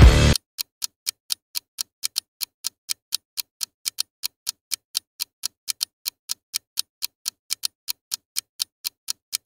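Loud intro music cuts off abruptly, then a clock-ticking sound effect plays for a countdown: sharp, even ticks, about three to four a second.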